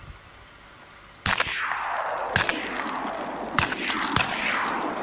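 Four shotgun shots in quick succession, the first about a second in and the last two closer together, each trailing off in a long echo.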